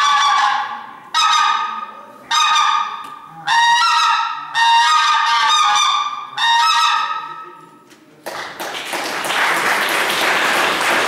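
Hand-blown goose call (duck-and-goose hunting lure) sounding a series of five drawn-out, pitched honks. Applause breaks out about eight seconds in.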